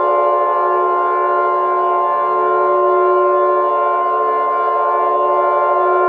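A steady siren-like alert tone: several pitches sound together at a constant level, neither rising nor falling.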